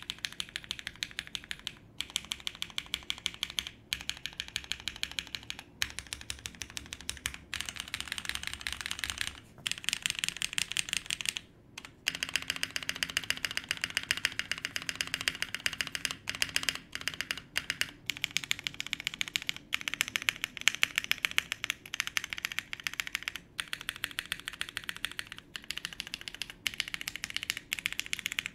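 Typing on a custom 65% mechanical keyboard: polycarbonate Bakeneko65 case with a stainless steel weight, POM plate on a gummy o-ring mount, broken-in lubed Whipped Cream linear switches and Cherry Taro keycaps. Fast, steady keystrokes with brief pauses every couple of seconds, on the muted side.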